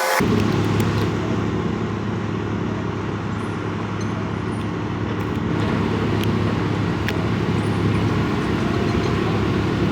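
Heavy vehicle's diesel engine running steadily with a low hum.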